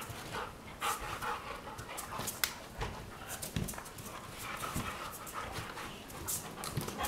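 Two Weimaraners playfighting: quick, repeated dog panting, with a few sharp clicks and low thumps as they wrestle on the dog bed.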